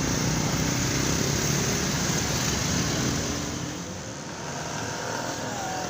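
A motor vehicle passing on the road, a steady rushing noise that eases after about three seconds.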